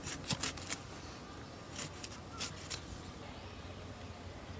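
A few faint, scattered clicks and light rustles over a low steady background, mostly in the first three seconds.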